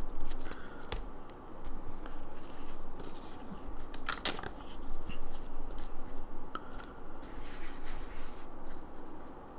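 Pokémon trading cards being handled: cards sliding and scraping against each other and set down on a playmat, an irregular scratchy rustle with a few sharp clicks.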